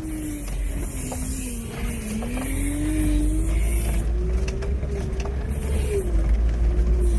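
Tracked all-terrain vehicle's engine running under load as it crawls over rocky ground, its pitch wavering up and down, over a heavy low rumble.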